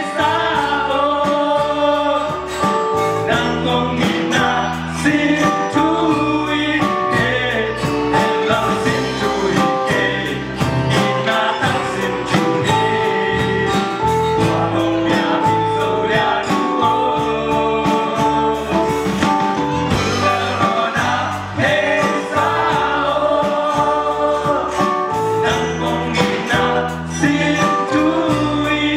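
Live band playing a Zomi-language song: several young male voices singing together into microphones over acoustic guitar, electric bass and keyboard, with a steady beat.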